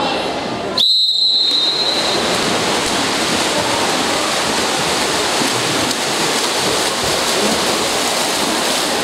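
Referee's whistle, one blast of about a second near the start, signalling the swim-off that starts the water polo quarter, followed by a steady wash of splashing as swimmers sprint for the ball.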